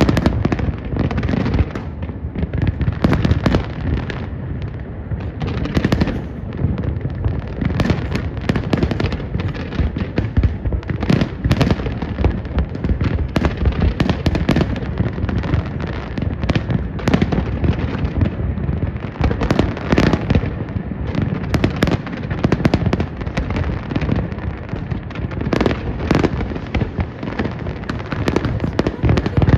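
Fireworks exploding continuously: a rapid, dense barrage of bangs and crackling over a steady low rumble.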